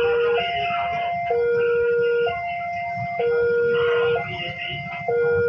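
Railway level-crossing warning alarm sounding: an electronic two-tone signal alternating steadily between a lower and a higher note about once a second, warning that a train is approaching.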